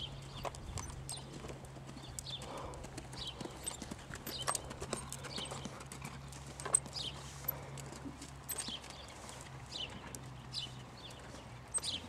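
Hoofbeats of a horse being ridden around a sand arena: an uneven run of dull thuds and clicks.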